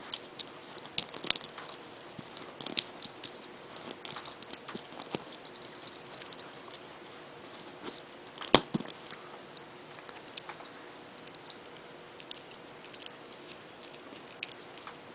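Hard plastic parts of a 1984 G1 Seaspray Transformer toy clicking and ticking as they are handled and folded between modes, with one sharp snap a little past halfway.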